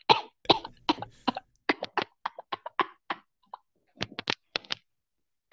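A person making a quick, irregular string of short, sharp mouth clicks and puffs of breath, which stop shortly before the end.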